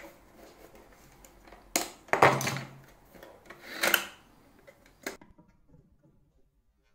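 Plastic clicks and scraping from handling and prying at an optical drive's front bezel to unclip it: a sharp click about two seconds in, a louder scrape just after, another near four seconds and a last click a little after five.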